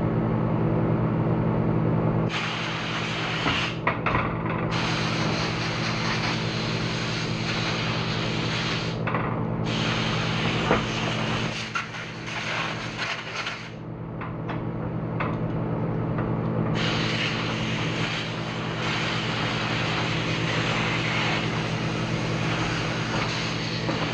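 A power tool's motor running steadily with an even hum, used in refinishing an old cast-iron vise. About two seconds in a harsh hiss joins it as the tool works on the metal. The hiss breaks off and comes back several times, with a few short gaps around the middle.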